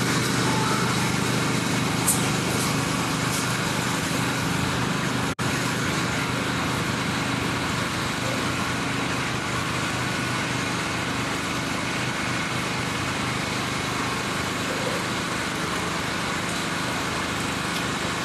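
Steady drone of a running engine, with a low even hum under a broad hiss. It cuts out for an instant about five seconds in.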